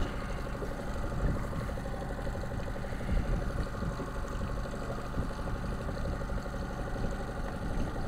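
A motorboat engine idling steadily with a low, even hum.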